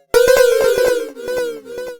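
Computer-generated sine pings from a sonification of a travelling-salesman route, each ping decaying quickly, with pitch set by the node's distance from the centre and repeated by a delay echo. They come in suddenly and loudly about a tenth of a second in, as a fast run of several clicky pings a second over steady tones, with some falling glides.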